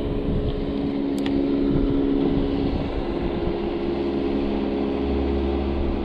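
Motorboat engine running at a steady pitch, an even drone with no change in speed.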